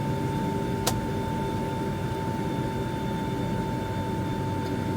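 Steady cabin noise of a Boeing 757-300 jet airliner: a low rumble with a steady high whine, and a single sharp click about a second in.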